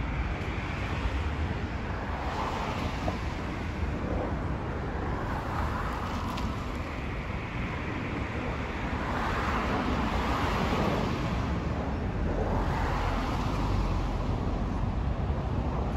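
Jet engine noise from a Boeing 737-300's CFM56 turbofans passing low on its landing approach: a steady rumble that builds toward the end. It is mixed with road traffic noise that swells and fades as vehicles pass.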